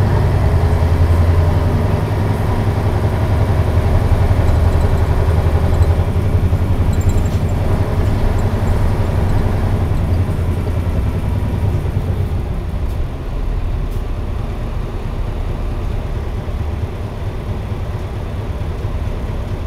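Isuzu KC-LV280N city bus's V8 diesel engine running on the move, heard from inside the bus as a steady low hum. After about ten seconds the engine note weakens and the overall sound gradually drops.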